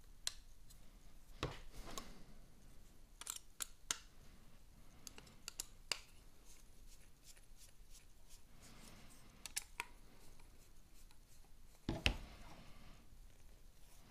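Faint small clicks and taps of carbon-fibre quadcopter frame arms being handled while screws are run in with a hex driver, with one louder knock near the end.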